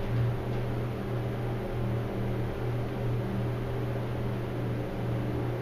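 Lancaster hydraulic elevator car travelling upward, heard from inside the cab as a steady low hum with light running noise.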